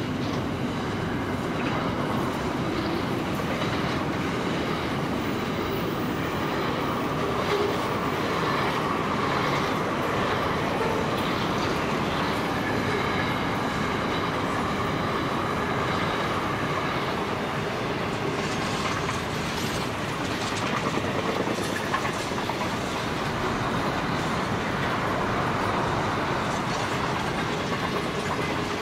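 Container wagons of a long freight train rolling past: a steady noise of steel wheels on rail, with clickety-clack from the wheels passing over rail joints.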